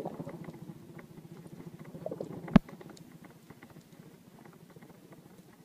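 Fishing line being wound by hand onto a plastic handline spool while bringing in a fish: a fast run of faint rubbing ticks that fades in the second half, with one sharp click about two and a half seconds in.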